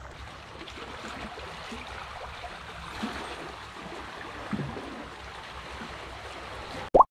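Small waves washing and trickling against a rocky shoreline in a steady wash. Near the end a short, loud rising tone cuts in, and then the sound stops abruptly.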